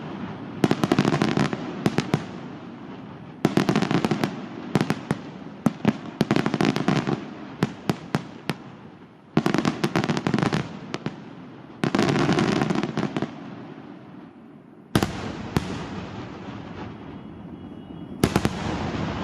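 Fireworks display: volleys of sharp bangs and rapid cracks, a new loud volley about every two to three seconds, each dying away before the next.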